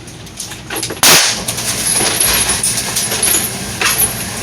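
A single loud gunshot about a second in, its report trailing off, followed by a fainter sharp crack near the end.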